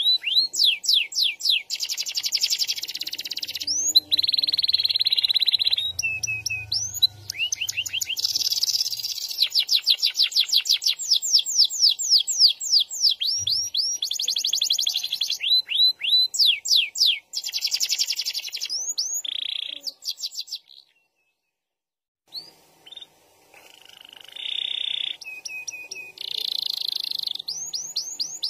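Domestic canary singing a long, varied song of fast trills and rolls: rapid runs of repeated sweeping notes alternating with buzzy rolled phrases. The song stops for about two seconds about three-quarters of the way through, then starts again.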